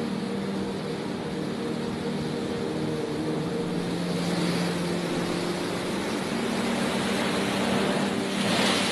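Storm surf and wind rushing as big waves break against a pier, with a louder surge near the end; a steady low drone runs underneath.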